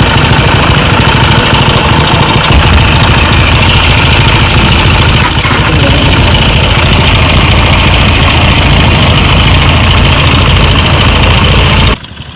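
Motorcycle engine idling steadily and loud, with the engine noise that is presented as a problem. The sound cuts off abruptly near the end.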